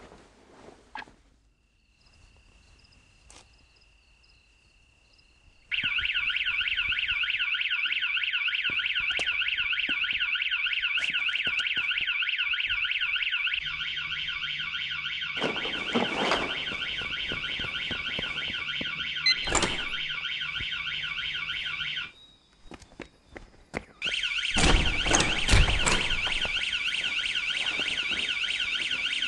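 Electronic security alarm siren warbling rapidly, starting about six seconds in, breaking off for a couple of seconds near the end and then starting again. A few dull thumps sound under it, and a short faint beep comes before it starts.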